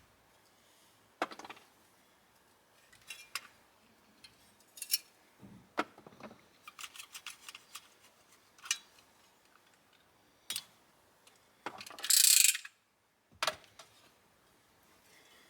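Hand tools working on a Toyota MR2 shifter base as its rubber bushings are cut and pried out: scattered small clicks, knocks and metal taps, with one louder half-second scrape about twelve seconds in.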